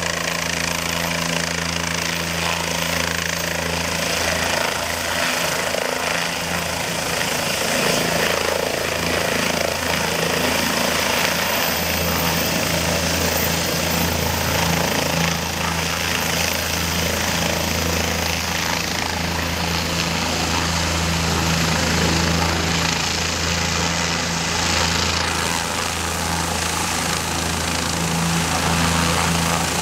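Bell 206 helicopter's turboshaft engine and main rotor running, with a steady low throb from the blades, as it comes down from a low hover, lands and keeps running on the ground with the rotor turning.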